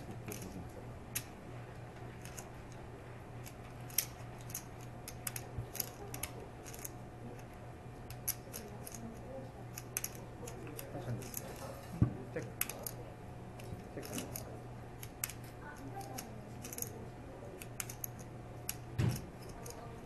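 Poker chips clicking as players handle and riffle their chip stacks: many small, sharp, irregular clicks over a low steady hum.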